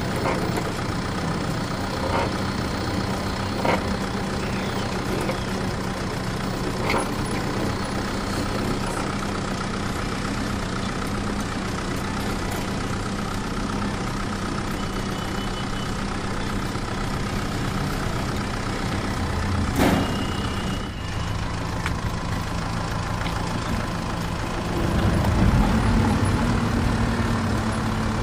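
Electric mini tractor towing a loaded trailer over a dirt track: a steady low mechanical hum with the rattle of the trailer and a few sharp knocks as it bumps along. The hum grows louder and rises slightly near the end.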